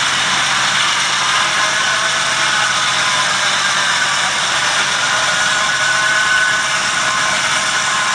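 An engine running steadily, heard as an even, noisy rush with a faint steady whine.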